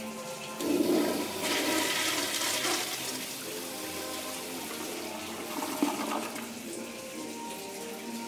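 Toilet flushing: a sudden rush of water starts about half a second in, is loudest for the first couple of seconds, then eases into a steadier swirl. A brief second surge with a sharp click comes a little before six seconds in.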